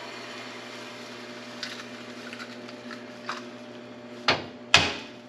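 Steady low hum of a running microwave oven, with two sharp knocks about half a second apart near the end, the second louder.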